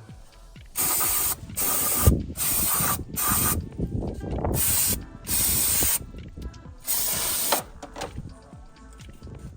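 An aerosol spray can fired in about seven short hissing bursts, spraying the brake caliper and piston area during cleaning.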